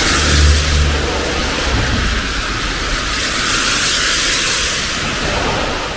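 Car tyres hissing on wet asphalt as traffic passes, with a low rumble in the first second and a half that then fades.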